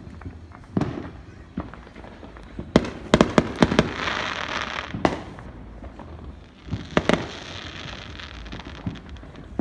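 Fireworks going off: single sharp bangs and quick clusters of cracks, the busiest about three seconds in and again around seven seconds, each followed by a second or so of crackling hiss.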